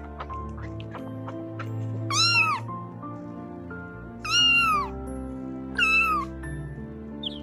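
A domestic cat meowing three times, each meow about half a second long and rising then falling in pitch, over background music.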